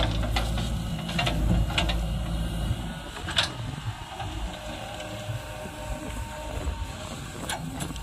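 Low diesel engine rumble from a JCB 3DX backhoe loader digging and loading soil, with a few sharp clacks. Louder for the first three seconds, then steady at a lower level.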